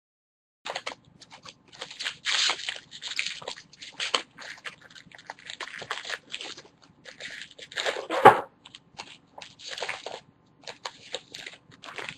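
Baseball card packs being handled: irregular crinkling of pack wrappers and rustling of cards, with a louder knock about eight seconds in.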